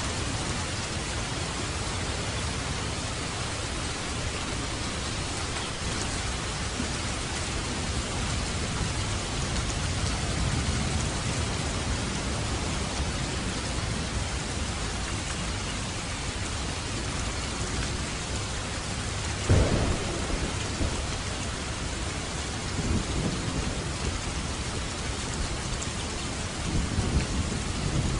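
Steady rain falling, with a sharp thunderclap about two-thirds of the way through and low rolls of thunder near the end.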